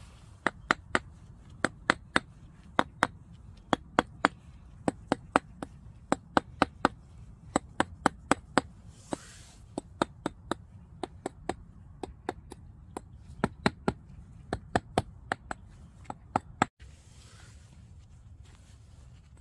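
Bricklaying trowel tapping cement bricks to bed them level in mortar: a long run of sharp knocks, mostly in quick pairs, about a second or so apart. The knocks stop about three seconds before the end.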